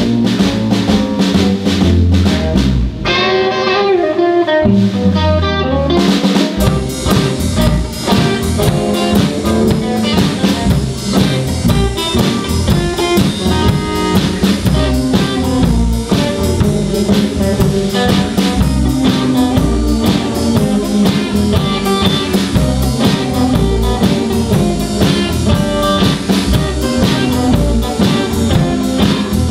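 Live band playing an instrumental rockabilly intro on electric guitar, electric bass and a Mapex drum kit. After a sparser break with sliding notes a few seconds in, the full band comes in with a steady drum beat about six seconds in.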